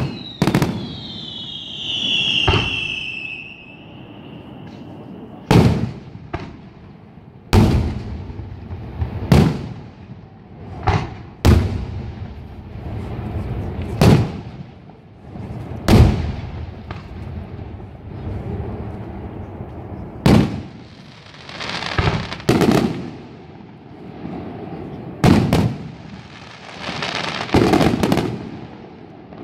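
Aerial fireworks display: shells bursting with sharp bangs every second or two. A whistling tone slides down in pitch during the first few seconds, and there are stretches of crackle between the bangs.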